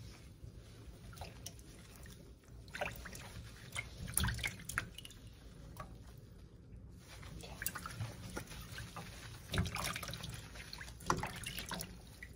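Water dripping and splashing in a stainless-steel sink as a wet puppy's soapy fur is rubbed by hand: irregular small drips and splashes, a few louder ones.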